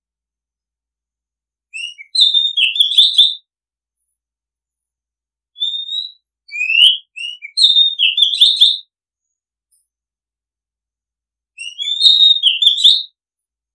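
Oriental magpie-robin singing: three separate phrases of high, clear whistles and quick trills, with silence between them.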